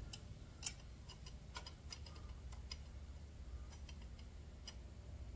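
Light, scattered clicks and ticks of friction discs and steel plates being slid one by one into a Harley-Davidson clutch basket. The plates touch and tap on the metal, with one sharper click under a second in.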